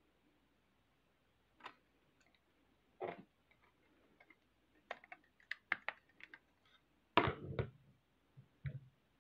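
Plastic LEGO pieces clicking and knocking as a brick-built X-wing model is handled and its wings and guns are moved, in scattered short clicks, with a louder clatter about seven seconds in.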